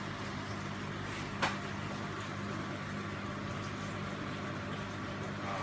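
Steady hum of aquarium pumps with the rush of circulating water in the coral trays, and one sharp click about a second and a half in.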